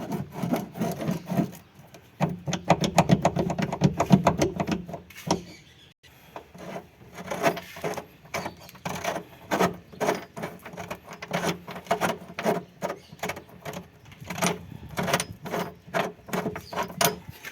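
Runs of quick metallic clicks and knocks from hand tools working the nut that presses a Fiat Uno's blown rear body-mount bushing out, with a connecting rod used as the pressing sleeve.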